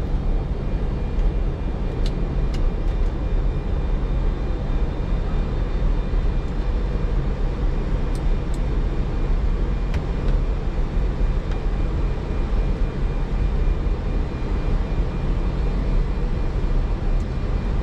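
Steady rumble of an Airbus A310 cockpit with the engines and aircraft systems running, with a faint steady whine above it. A few light clicks sound around two seconds in and again around eight to ten seconds in.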